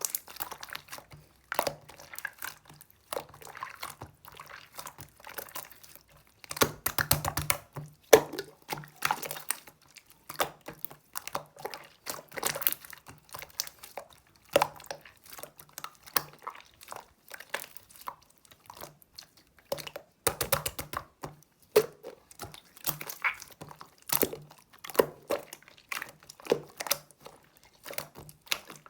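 Irregular crinkling and crackling with many small clicks, over a faint steady low hum.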